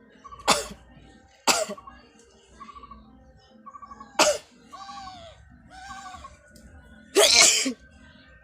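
A person sneezing: a sharp sneeze about half a second in, another a second later, a third about four seconds in, then a longer, louder burst near the end.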